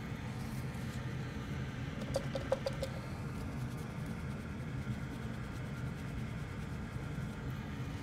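Steady low machine hum of bench equipment, with a few light ticks a little over two seconds in.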